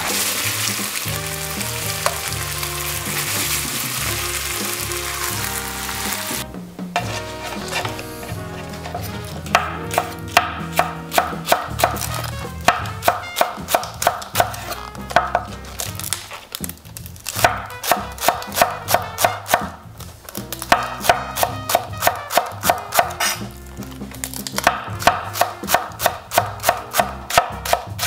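Ground pork sizzling as it simmers in sauce in a pan for the first few seconds. Then a Global santoku knife chops green onions on a wooden cutting board, in quick, even strokes about four a second, in runs with short pauses. Background music plays throughout.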